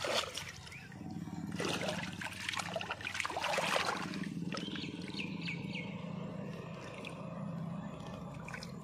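Water splashing and trickling as tilapia are handled in a wet net in shallow water, with irregular splashes strongest in the first half, over a steady low hum.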